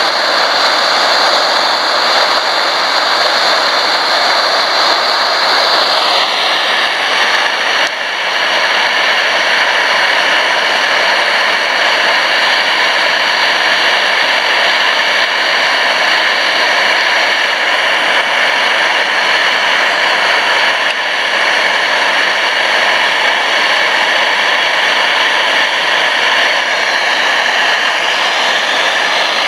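MSR DragonFly liquid-fuel camping stove burning at full flame with a loud, steady roar; its tone shifts slightly about six seconds in.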